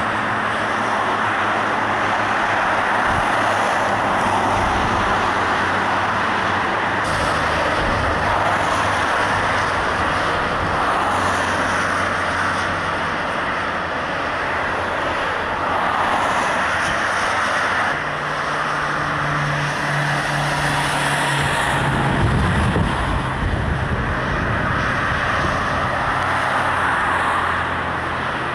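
Road traffic: motor vehicle engines running and passing. A steady engine hum comes in about two-thirds of the way through, and a louder vehicle passes soon after.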